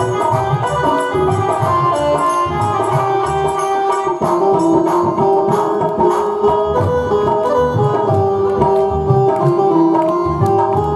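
Instrumental bhajan music: hand drums playing a steady rhythm under a melody with held notes.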